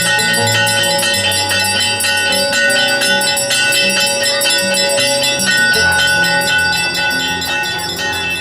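Background music with bell-like chiming tones over a shifting low melody.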